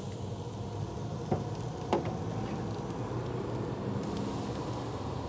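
Pork chops sizzling on hot grill grates over a steady low hum, with two light metal clicks of steel tongs against the grates about a second and two seconds in.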